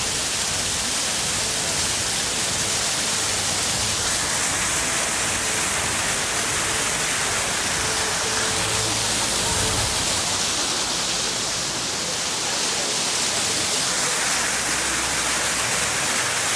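Steady rush of falling water: an even hiss with no breaks.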